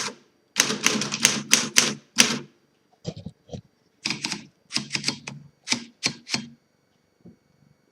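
1939 Smith Corona Standard manual typewriter being typed on: quick runs of keystrokes, the type bars clacking against the platen, in bursts with short pauses. The typing stops about six and a half seconds in.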